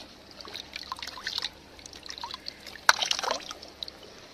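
Hands splashing in a shallow tide pool, with water trickling and dripping off scallop shells as they are lifted out. There are many small splashes and a sharper one about three seconds in.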